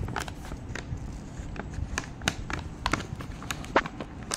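Plastic dog-treat packet crinkling and crackling as it is handled, with irregular sharp crackles.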